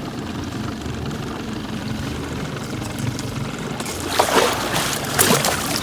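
A fishing boat's motor runs steadily as a low rumble, with wind on the microphone. About four seconds in, a louder burst of rushing noise lasts a second and a half.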